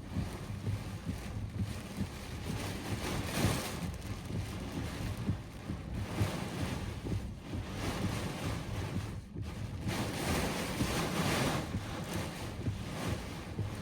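Severe thunderstorm wind gusting with heavy rain, the gusts buffeting the microphone with a low rumble. The noise swells in several surges, strongest about ten to eleven seconds in.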